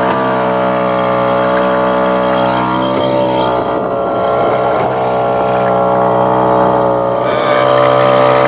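Small outboard motor running steadily on a boat. Its speed sags a little in the middle, then picks up again near the end as the throttle opens.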